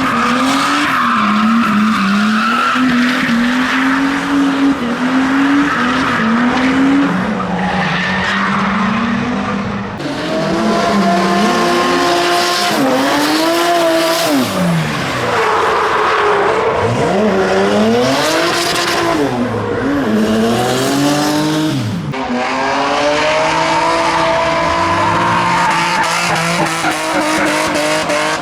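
Drift cars being driven hard: engines revving up and down in quick swings of pitch over a steady hiss of tyres squealing and skidding. The sound changes abruptly twice, about a third and two-thirds of the way through.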